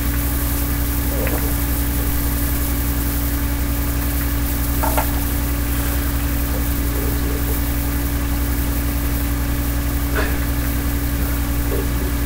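A steady low hum with hiss, unchanging throughout, with a few faint brief sounds about a second, five seconds and ten seconds in.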